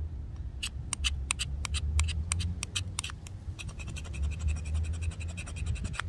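Buck 110 folding knife's blade shaving and scraping a stick of fatwood into tinder: a few separate scratchy strokes, then a fast, even run of scrapes in the second half.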